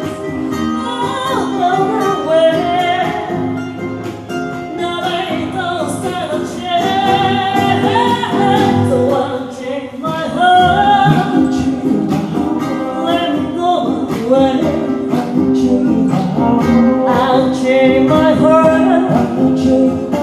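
A song: one melodic voice singing over plucked-string accompaniment.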